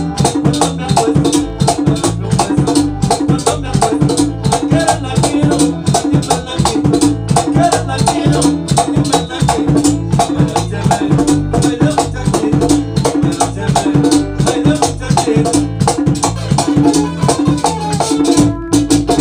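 Live band music: strummed acoustic guitars and electric bass over a steady, Latin-style percussion beat with a shaker-like rattle, with a man singing into a microphone.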